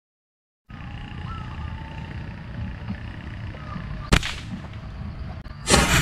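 Quiet outdoor background noise with a few faint chirps, one sharp snap about four seconds in, and a brief louder rustle just before the end.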